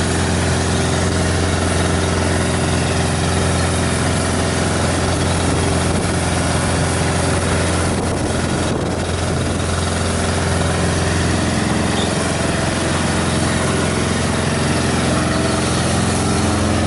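Engine of a water-tanker fire truck running steadily at idle, under a broad hiss from a hose spraying water onto smouldering trash.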